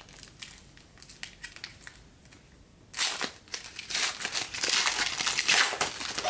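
Foil trading-card pack wrapper of 2015 Panini Diamond Kings crinkling: faint rustling at first, then loud, dense crinkling from about three seconds in as the pack is ripped open.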